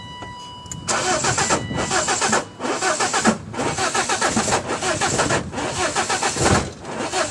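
1995 BMW 318is four-cylinder engine being cranked by its starter motor, turning over steadily without catching, after a steady electronic warning tone in the first second. The owner says cranking is all it does: a no-start that a checked EWS immobiliser has not explained.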